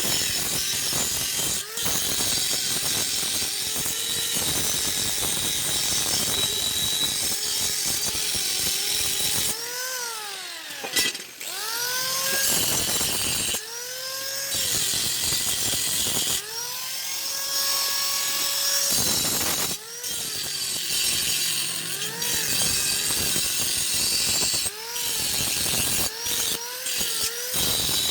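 Electric angle grinder grinding steel, pressed onto the metal and lifted off again and again; each time it is lifted the motor's pitch rises as it speeds up, and the rough grinding noise returns as it bites again.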